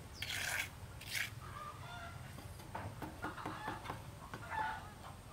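Chickens clucking in short calls, over a couple of scrapes in the first second or so and a run of light taps from bricklaying.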